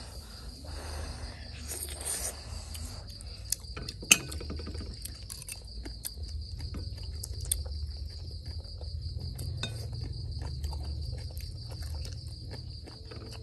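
Steady high trilling of night crickets, with scattered clinks and taps of spoons on dishes over a low rumble; one sharp clink about four seconds in is the loudest.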